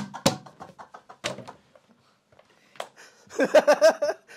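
Two sharp smacks of a plastic water bottle swung at a man, one right after the other, followed by a scatter of lighter taps. Near the end comes a burst of men's hearty laughter.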